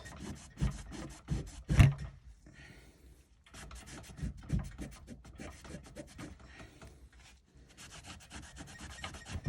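Microfiber towel rubbed quickly back and forth over a pistol's engraved surface, wiping off excess crayon wax after a colour fill, with a few knocks as the gun is handled, the loudest about two seconds in.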